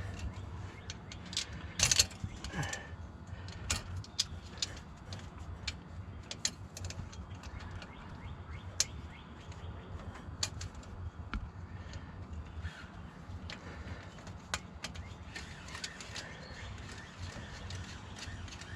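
Irregular metallic clicks, clinks and light knocks of hand tools and small engine parts being handled, over a steady low hum.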